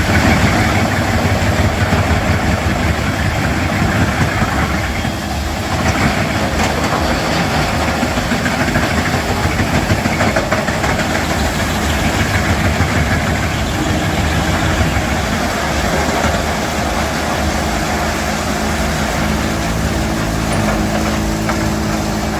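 A large wood chipper's 540-horsepower engine running steadily under load, with a brief dip in level about five seconds in.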